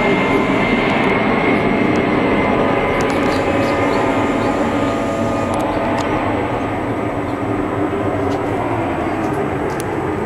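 Airplane flying overhead: a loud, steady engine noise that slowly fades as it passes.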